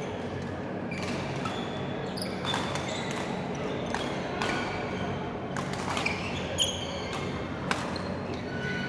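Badminton rackets striking shuttlecocks with sharp cracks at irregular intervals, roughly once a second, heard from several courts at once. Short squeaks of shoes on the court floor come between the hits, over a steady low hum in a large hall.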